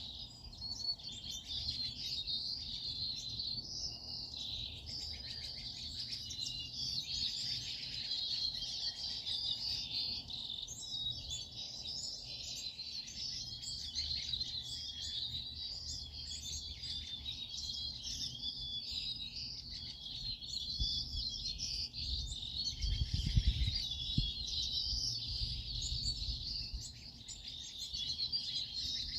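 Many small birds chirping and singing at once in a dense, unbroken chorus. A low rumble swells underneath for a few seconds about three-quarters of the way through.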